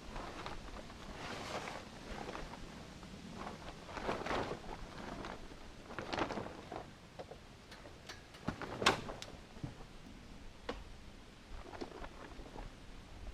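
Tent and camp gear being handled: rustling with scattered clicks and knocks, the loudest a sharp knock about nine seconds in.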